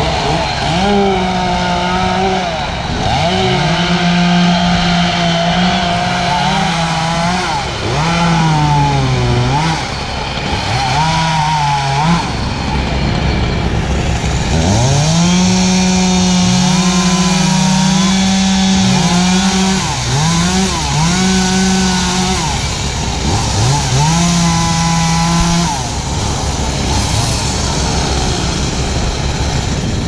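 Gas chainsaw cutting up a fallen tree, repeatedly revved to full throttle and dropped back, about seven bursts of a few seconds each, the pitch sagging and recovering within some bursts.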